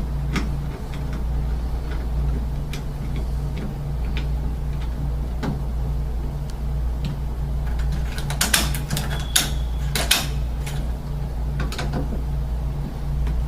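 Scattered metal clicks and rattles of a surface-mount door lock and its cylinder being handled and worked, with a quick run of sharper clicks about eight to ten seconds in, over a steady low hum.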